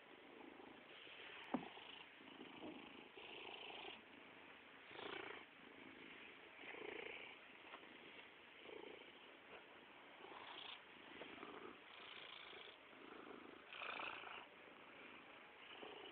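Domestic cat purring close up, swelling and fading with each breath about once a second. A single sharp click about a second and a half in.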